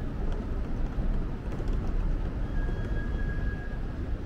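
Steady low rumble of a Shinkansen train, with a few faint clicks and a faint steady high tone lasting about a second from about two and a half seconds in.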